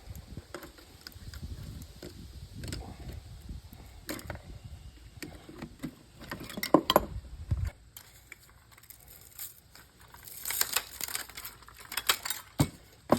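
Irregular metallic clicks, clinks and knocks as parts of an old TV's chassis are handled and pried apart, with a louder knock about halfway and a quick run of rattling clinks near the end.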